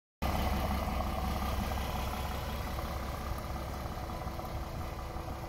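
DAF XF 480 tractor unit's PACCAR MX-13 inline-six diesel idling steadily, a low rumble that grows gradually a little quieter.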